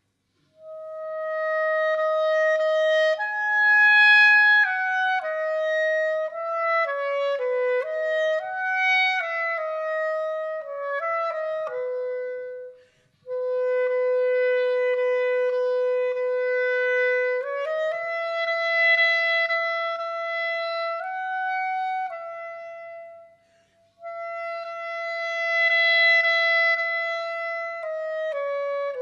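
Solo clarinet playing a slow, smooth melody of long-held notes in a tenuto style, starting about half a second in. The line breaks off briefly twice, about halfway through and again near the end, before carrying on.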